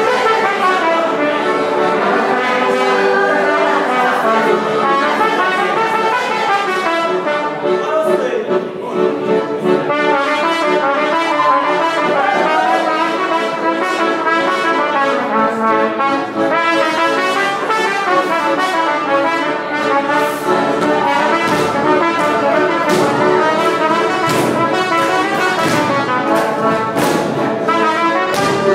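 Brass band playing dance music, with sharp beats standing out more clearly in the second half.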